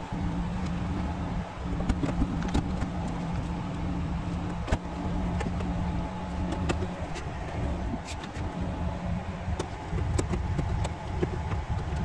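Steady low mechanical hum with scattered light clicks and taps of a nut driver on the air handler's sheet-metal panel screws as the cover is fastened back on.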